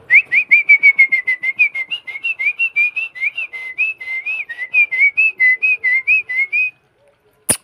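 A pigeon keeper's rapid mouth whistle, a quick run of short wavering chirps about six a second for several seconds, calling his flying pigeons down to the roof. A sharp click near the end.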